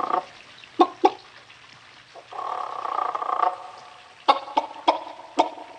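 A strange pitched buzzing sound over a house's loudspeaker system, heard twice and about a second long each time. Between the buzzes come sharp clicks of buttons and switches on an electronic control panel, the loudest being a pair about a second in and a run of four in the second half.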